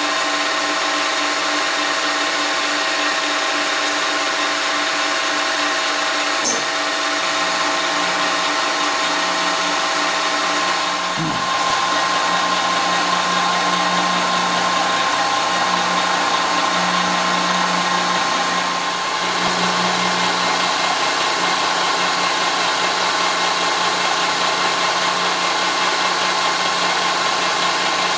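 Optimum MB4 mill-drill spindle turning a 40 mm shell mill at 300 RPM, milling across an aluminium casting. A loud, steady running noise with several steady whining tones.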